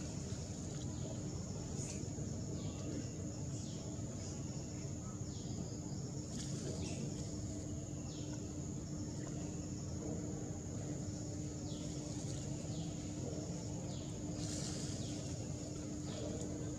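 Outdoor ambience: a steady high-pitched insect drone and a low steady hum, with short high falling chirps that come in runs every second or so.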